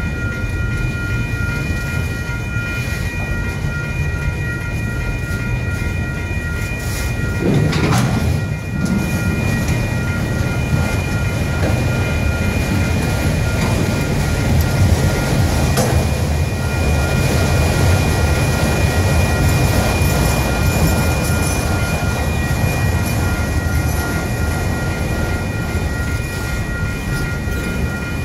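Freight train's autorack cars rolling past at speed: a steady rumble and clatter of wheels on rail, with a brief louder swell about eight seconds in. Over it runs the grade-crossing signal's bell, a steady high-pitched pulsing ring.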